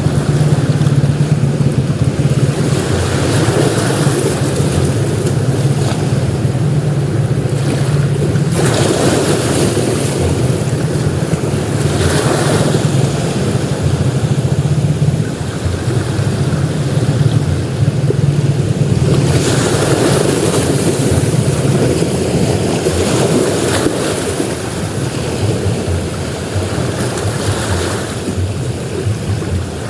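Sea waves breaking and washing up a beach in repeated surges every several seconds, over a steady low rumble of wind on the microphone.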